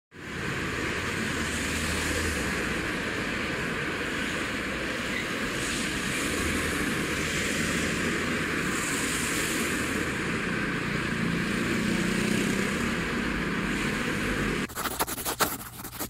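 Steady background noise, like a constant hiss or rumble, with a quick run of clicks and ticks near the end.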